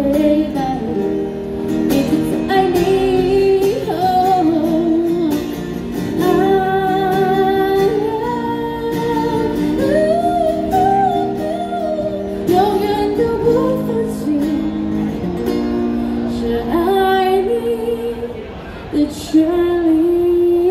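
A woman singing a pop ballad into a microphone while playing an acoustic guitar, both amplified through a small street amplifier.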